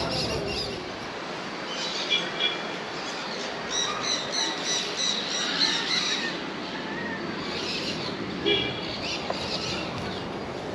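Birds calling: a quick run of repeated high chirping calls in the middle, with other short calls about two seconds in and again near the end.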